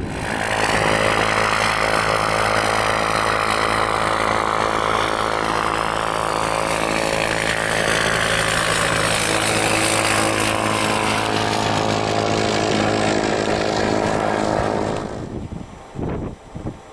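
Aircraft engines running loud and steady as a plane passes close by, with a slowly shifting whoosh over a steady engine tone; the sound drops away sharply near the end.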